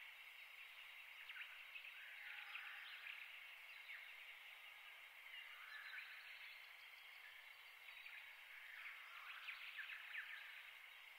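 Faint small birds chirping and twittering in a few short bouts over a low steady background hiss.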